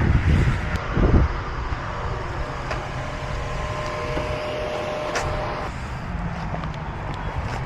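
Steady low rumble of vehicle engine noise, with two low thumps in the first second and a sharp click about five seconds in.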